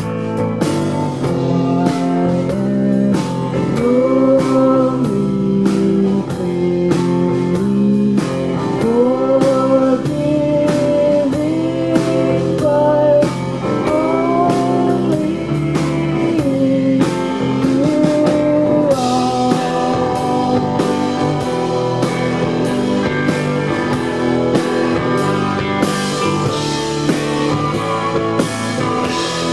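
Live rock band playing an instrumental break of a slow song: a guitar lead line with bending notes over bass and steady drums, with cymbals washing in louder from about two-thirds of the way through.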